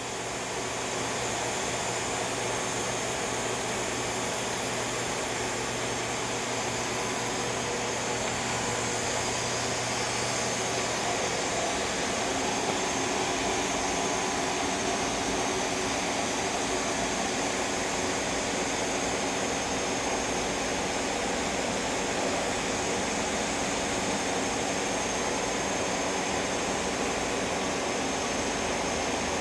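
Hardinge VMC800II vertical machining center running under power, a steady mechanical hum with a faint high whine. A low hum drops out about eleven seconds in.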